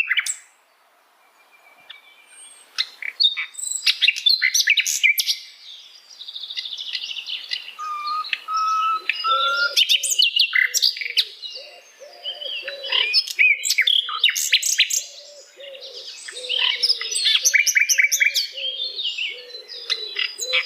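Sikatan londo, a flycatcher, singing vigorously: long bursts of rapid, varied chirps, trills and whistles separated by short pauses. The song starts a few seconds in, after a near-quiet gap, and repeated lower notes run under it in the second half.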